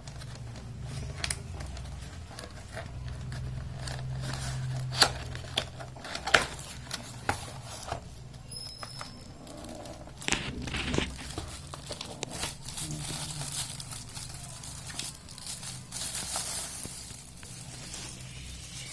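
Keyboard packaging being handled during unboxing: plastic and cardboard crinkling and rustling, with scattered sharp clicks and knocks, over a steady low hum.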